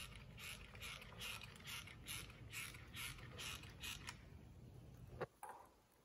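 A hand-worked ratcheting mechanism, rasping in short, even strokes about two or three a second for about four seconds, then a single sharp click about five seconds in.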